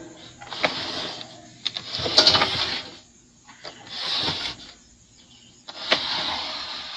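Screws being taken out of the amplifier's metal cover: a few short spells of clicking and scraping with brief pauses between.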